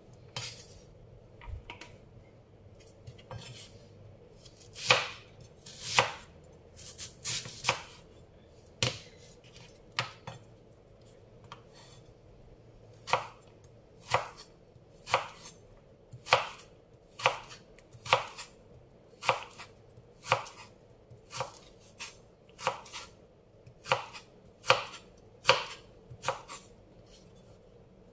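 Kitchen knife chopping unripe mango on a cutting board: sharp single strokes, scattered at first, then about one a second in the second half.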